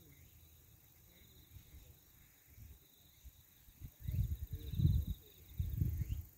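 Insects trilling steadily in the riverside grass, a faint high buzz. About four seconds in, two bouts of loud low rumbling noise hit the microphone.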